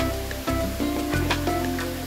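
Background music: held chords over low bass notes, with a few light percussion hits.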